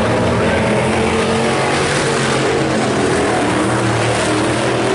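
Several IMCA Hobby Stock race cars running hard together, their engines overlapping in a loud, steady din with pitches rising and falling as the pack goes around the track.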